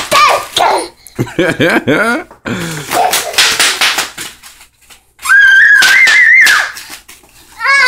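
Bubble wrap crackling and popping under a toddler's bare feet as he runs across it, in quick runs of sharp pops. In between comes a child's giggling and, near the end, a long high squeal of delight.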